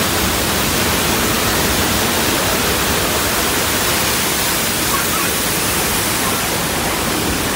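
Staged flash flood on a theme-park tram ride: a huge volume of water pouring down the canyon set and over the tram in one steady, loud rush.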